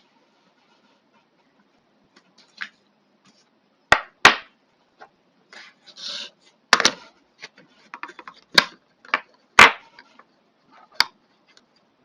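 Scattered sharp clicks, taps and light rubbing of small hard parts and tools being handled on a work surface while the trimmer is worked on. The loudest taps come about four, seven and nine and a half seconds in.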